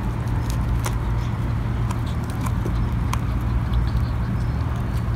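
Two dogs gnawing and crunching dried calf shin bones: irregular sharp cracks of teeth on bone, over a steady low hum.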